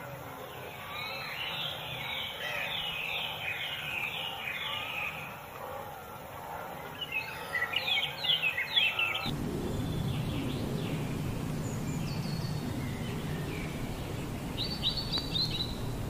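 Small birds calling: a run of quick repeated chirps, then a louder rapid burst of calls about eight seconds in. About nine seconds in the background suddenly changes to a steady low noise, with only a few scattered chirps over it.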